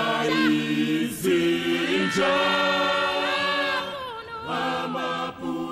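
A group of voices singing unaccompanied in harmony, holding long notes, with a short dip about four seconds in.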